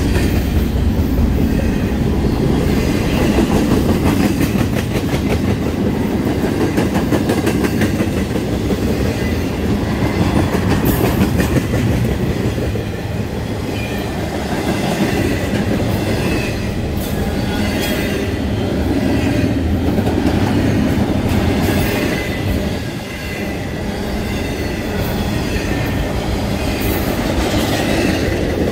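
CSX intermodal train's double-stack container well cars rolling past close by: a steady loud rumble of steel wheels on rail, with clicking as the wheels cross rail joints.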